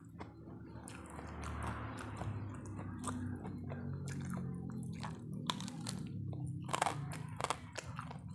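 Close-up chewing of crunchy food, with repeated sharp crunches and crackles as it is bitten and chewed.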